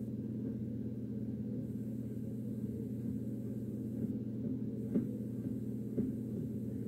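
Steady low background hum with several pitches stacked together, and a few faint taps of a paintbrush against the fabric lampshade about four, five and six seconds in.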